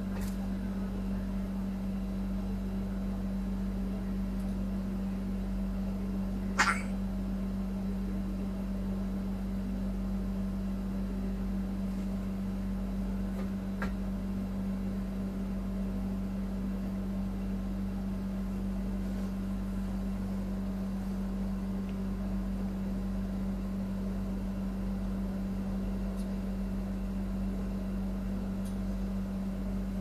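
A steady low hum, with one short, sharp sound about six and a half seconds in and a faint tick near fourteen seconds.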